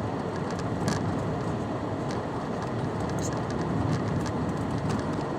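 Car running, heard from inside the cabin: a steady road and engine rumble with a few faint ticks.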